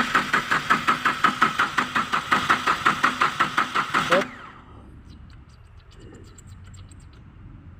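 Yanmar 3TN three-cylinder diesel turned over by its starter motor, cranking in an even pulsing rhythm of about six compression beats a second without catching: a crank-no-start. The cranking cuts off suddenly about four seconds in, and faint light clicks follow.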